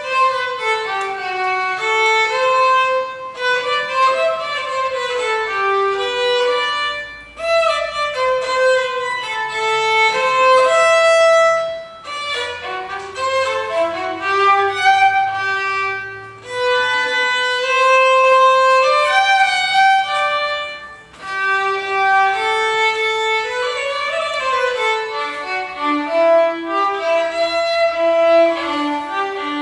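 Solo violin played with the bow, unaccompanied: a melody of short and held notes in phrases, with brief breaks between phrases.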